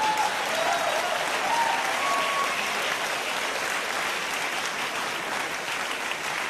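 Theatre audience applauding, with a few cheers in the first couple of seconds, the clapping easing off slowly toward the end.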